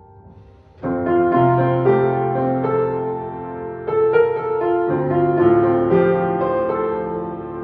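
Solo piano playing: a soft, fading phrase gives way about a second in to a sudden loud passage of sustained chords over a held bass, with another strong accent near the middle.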